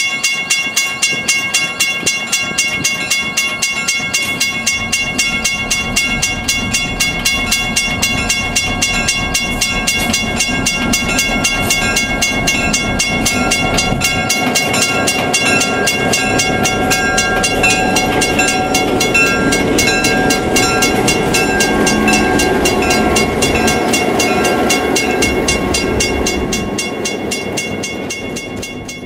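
EMD GP9 diesel locomotive passing, its engine and wheel noise growing louder through the middle and fading away near the end, while a grade crossing bell rings steadily at about three strikes a second.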